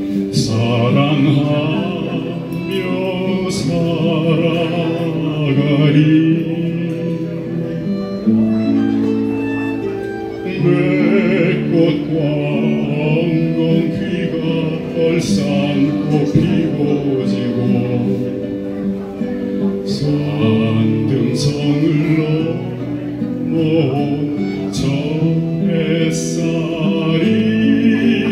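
A male classically trained voice singing a slow Korean song in an operatic style, holding long notes, with keyboard accompaniment.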